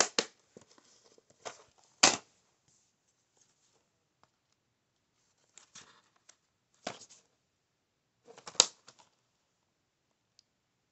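Plastic DVD cases being handled, picked up and turned over by hand: short clicks, taps and rustles in separate clusters, the loudest about two seconds in.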